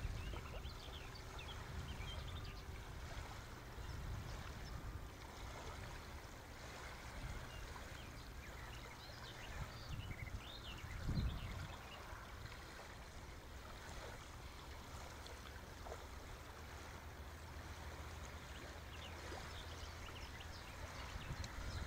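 Faint outdoor ambience: a steady low rumble with scattered short, high chirps, and one brief low thump about eleven seconds in.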